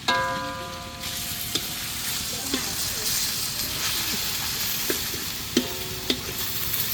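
Pork belly sizzling in a hot pot as a metal spatula stirs it. A ringing clang of metal on the pot comes at the start, then several lighter clinks.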